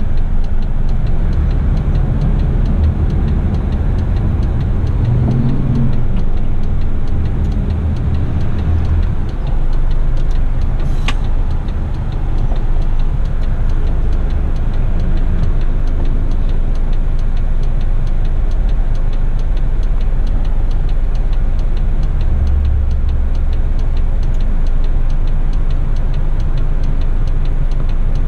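Heavy rigid truck's diesel engine running, heard from inside the cab as a steady low rumble. A brief sharp click comes about eleven seconds in.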